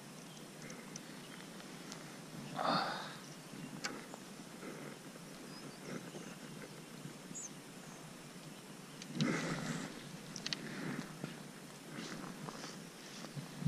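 Scattered rustling and light handling knocks of an angler working a fishing rod and line and moving in his jacket, with two louder rustles about three seconds in and about nine seconds in, over a steady outdoor hiss.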